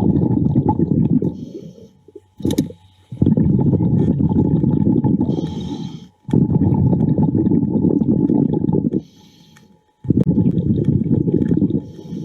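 A diver breathing through a regulator underwater: long bursts of exhaled bubbles rumbling past the microphone, with a short high hiss of inhaled air between them, about three breaths.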